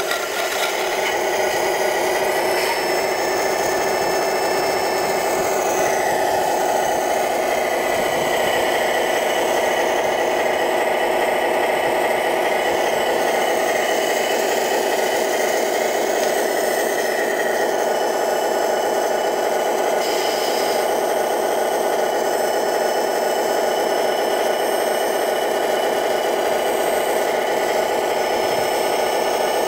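Radio-controlled Wedico Cat 966 scale wheel loader working, a steady mechanical whir with no break.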